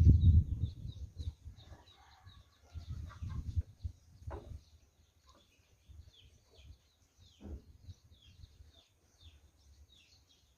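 Chicks peeping: short, high, falling chirps repeating a couple of times a second. Several low knocks and rustles of parts being handled, the loudest at the very start and others around the middle.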